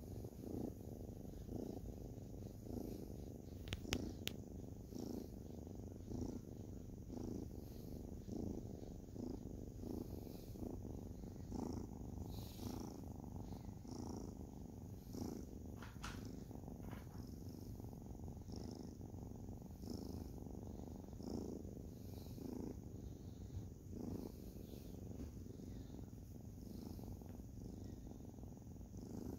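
Sphynx cat purring steadily, the purr swelling and easing in a regular rhythm about once a second with its breathing. Two brief clicks about four seconds in.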